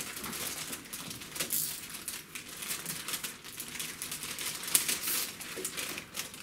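Packaging crinkling and rustling as it is handled, in irregular crackles, with a louder crackle a little before five seconds in.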